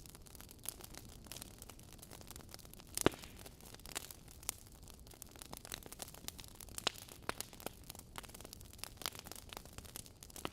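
Logs burning in a fireplace, crackling: a soft steady hiss with frequent sharp pops at irregular intervals, the loudest about three seconds in.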